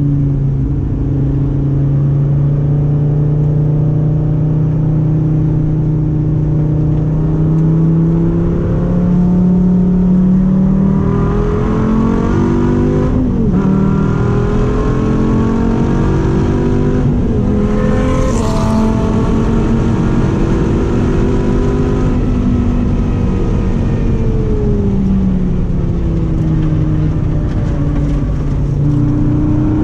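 Dodge Viper V10 engine driven hard on a race track: the note climbs steadily for about the first ten seconds, steps through several gear changes in the middle, and falls away near the end as the car slows.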